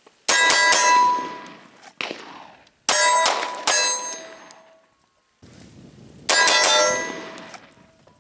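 About five gunshots, first from a rifle and then from a pistol, each followed by the clang of a hit steel target ringing on and fading out.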